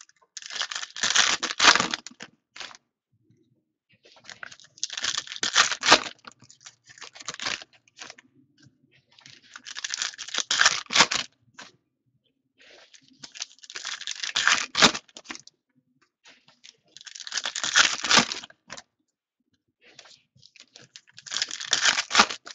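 Foil wrappers of Optic football card packs being torn open and crinkled by hand, one pack after another, in six bursts of crackling about four seconds apart.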